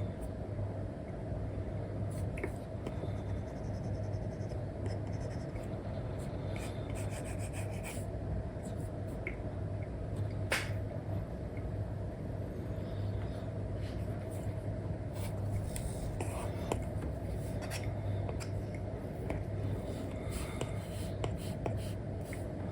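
Apple Pencil nib scratching and tapping on an iPad's paper-like screen film: faint strokes and ticks over a steady low hum, with one sharper click about ten seconds in.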